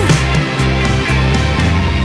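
Rock music playing, an instrumental stretch with no singing.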